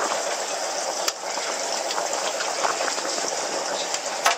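Steady rush of running water, with a sharp knock about a second in and another near the end.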